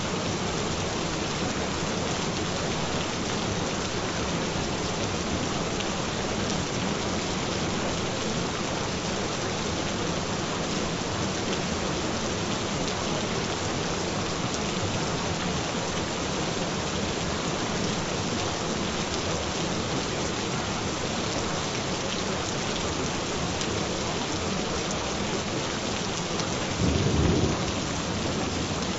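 Steady rain falling, an even dense hiss, with a brief low rumble of thunder about two seconds before the end.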